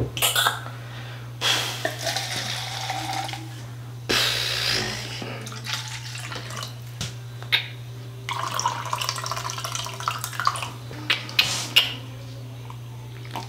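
Juice poured from a plastic bottle into a plastic cup in a few gushes, with light clicks from handling the bottle and cup, then a few sips near the end. A steady low hum runs underneath.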